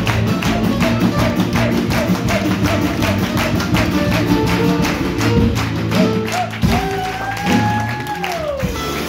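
Live swing band playing a fast tune with a quick, even beat. Near the end a long held note slides down in pitch.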